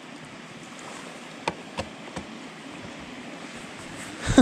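Steady rush of water in a shallow, rocky creek with a small waterfall. A few light clicks come a little over a second in, and a louder thump near the end.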